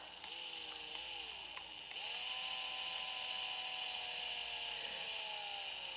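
Electric drill spinning a quilling tool clamped in its chuck to roll up a paper flower. The motor whines in two runs: a short wavering one, then, about two seconds in, a longer steady one that starts to slow near the end.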